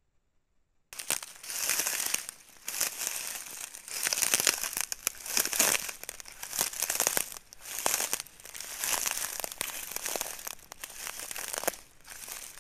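Loud, irregular rustling and crackling, as of dry leaves or brush being disturbed. It starts suddenly out of near silence about a second in and comes in uneven waves every second or two.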